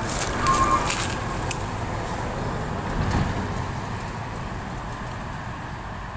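Heavy dump trucks' diesel engines rumbling as they pass and pull away, the sound slowly fading. A short high beep sounds about half a second in.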